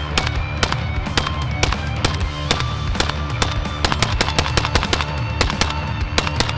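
Suppressed 5.45x39mm AK-74-pattern short-barrelled rifle firing a string of shots, heard over background music.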